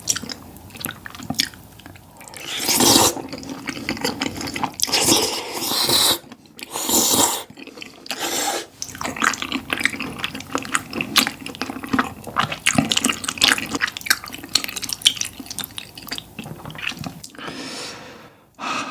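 Close-miked ASMR eating: wet mouth sounds, with dense chewing and smacking clicks broken by several longer slurps, each about a second long.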